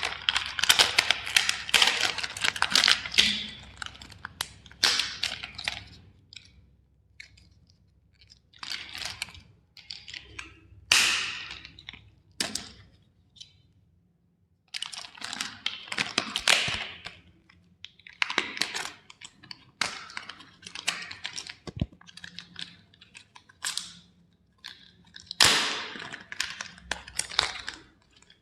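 Hammer striking and breaking plastic toy vehicles: bursts of sharp cracks and crunching, with short pauses between.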